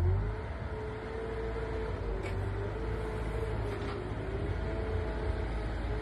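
Compact wheel loader's diesel engine running as it pushes snow with its bucket: a steady low rumble with a whine that wavers up and down in pitch as the revs change.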